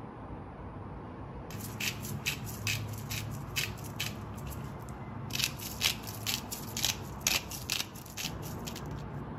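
Hand-twisted salt and pepper grinder grinding over food, with quick crunchy clicks about four a second. The clicks come in two runs: one starting about a second and a half in, and one starting about five seconds in.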